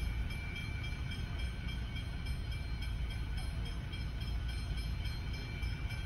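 Steady low rumble heard from inside a car waiting at a railway level crossing whose warning lights are still on, with faint steady high tones over it.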